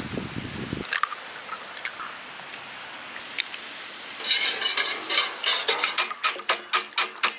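A few sharp taps as eggs are cracked on a stainless steel bowl, then, about four seconds in, a wire whisk beating eggs in the steel bowl, with quick scraping, clinking strokes about three a second.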